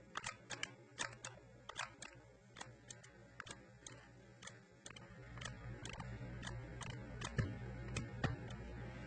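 Irregular light clicks and taps, with two louder knocks near the end, over a low hum that comes in about halfway.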